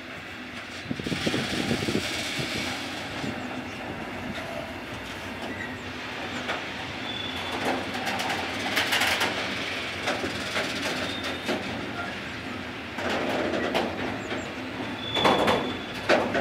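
Freight hopper wagons rolling past, their wheels clacking rhythmically over rail joints and points, with a couple of short, high-pitched wheel squeals.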